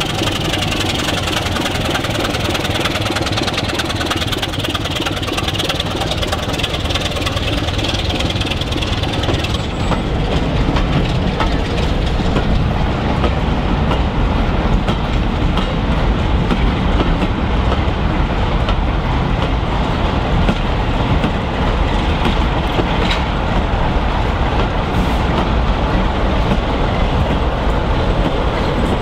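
Class 25 diesel locomotive's Sulzer six-cylinder engine working hard as it pulls a passenger train away, for about the first ten seconds. After that, the coaches rumble and clatter past on the rails. Near the end, the Class 45 diesel on the rear of the train draws level.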